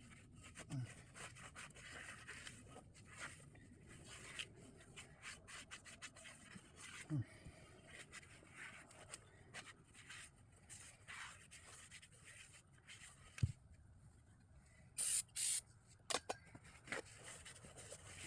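Faint rubbing, scraping and clicking of hand work on a brake caliper, with two short bursts of high hiss from an aerosol can of brake cleaner about 15 seconds in.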